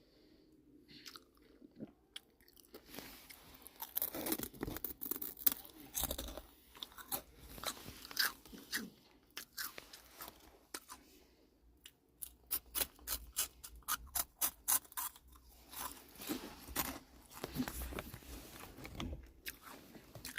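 Close crunching and chewing of dried pollack (nogari) chips. After a quiet first couple of seconds come crunchy bites, then a run of quick, even crunches about four a second through the middle, then more chewing near the end.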